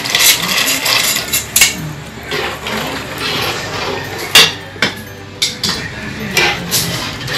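Washed macaroni tipped from a strainer into a metal stockpot of broth, then a ladle stirring and knocking against the pot, with a series of sharp metallic clinks, the loudest about halfway through.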